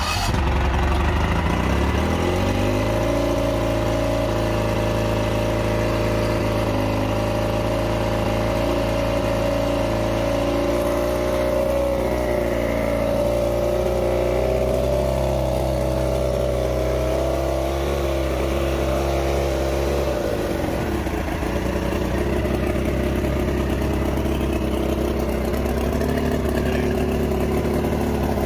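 Mercury 150 hp inline-six two-stroke outboard starting and running steadily on a test stand, as a run-up after its WMK carburetor floats and tangs have been set. About twenty seconds in the engine note changes and drops to a lower idle.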